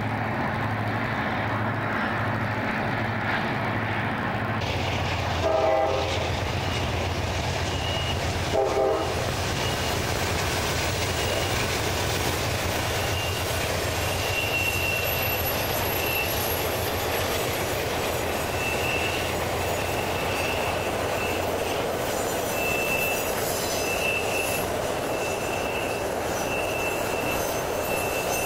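Amtrak passenger train with GE Genesis diesel locomotives passing on a curve: diesel engines running, two short horn blasts about five and eight seconds in, then a high wheel squeal that comes and goes as the train rolls by.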